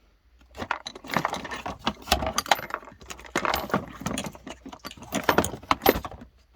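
Metal tools and parts rattling and jingling as they are handled, in an irregular run of short clinks and clatters.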